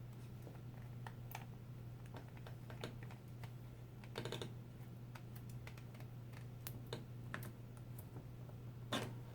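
Small scattered clicks and taps of hands and a small screwdriver working on a laptop screen assembly while it is screwed back into place, with a brief rattle about four seconds in and a louder knock near the end.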